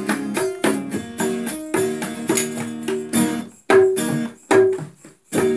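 Acoustic guitar strumming with small hand drums in a koplo-style rhythm, without singing, breaking into a few sharp accented hits separated by short gaps in the second half. A final chord is struck near the end and left ringing.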